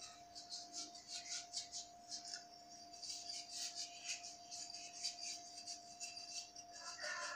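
A small brass item being scrubbed by hand in a steel basin of cleaning solution: faint, irregular wet rubbing strokes, several a second, over a steady hum.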